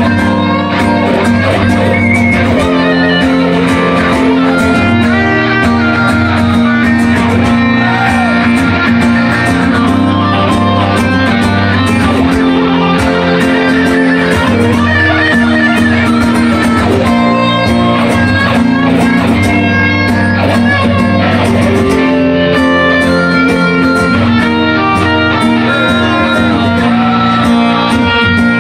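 Two acoustic guitars playing together, one strumming chords, in an instrumental stretch without singing.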